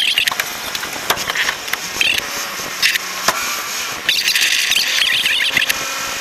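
Burning truck fire crackling and popping, with many sharp snaps over a steady rushing noise and stretches of a higher, wavering hiss.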